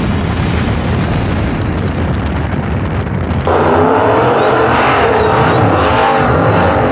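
Drag car rolling down the strip with its parachute out: a steady wind rush over a low engine rumble. About halfway through it switches abruptly to the louder, rougher rumble of drag-car engines running at the starting line.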